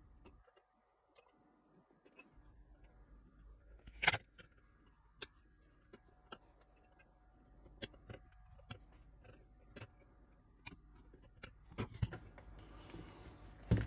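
Side cutters snipping LED leads on a circuit board: scattered sharp clicks, the loudest about four seconds in, with handling clatter near the end.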